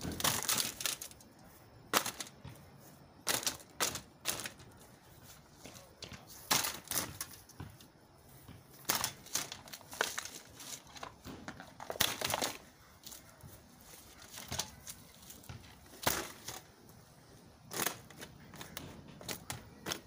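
Cheap box fan being slammed onto the ground and stomped: about a dozen sharp cracks and crunches of its plastic housing and thin metal grille, spaced irregularly with pauses between.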